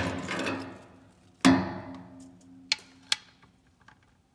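Metal clanks of a socket and torque wrench being handled and fitted onto the oil drain plug: two ringing clangs, the loudest about a second and a half in, then two light clicks.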